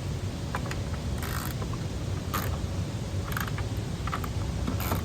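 A hand tool loosening the 10 mm screws on a car's tail light housing: short bursts of clicking and scraping about once a second, irregularly spaced, over a steady low rumble.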